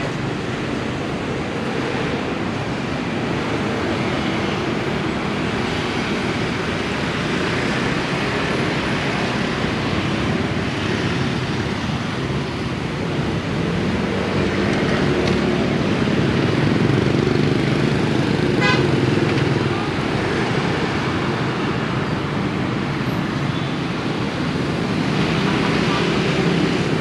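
Steady road traffic of cars and motorbikes passing, swelling a little in the middle, with one short horn beep about two-thirds of the way through.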